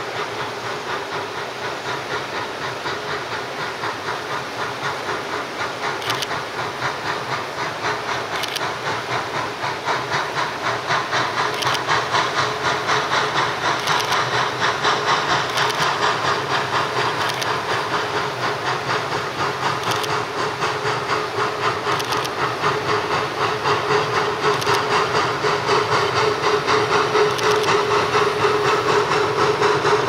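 Narrow-gauge steam locomotive working with a fast, even exhaust beat and hissing steam, growing steadily louder. Sharp clicks come every second or two, like wheels over rail joints, and a steady tone grows stronger toward the end.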